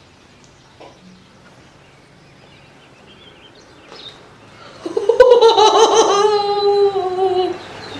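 A person lets out one long high-pitched squealing laugh, starting about five seconds in and lasting about two and a half seconds, its pitch sliding slightly down. Before it, only faint background.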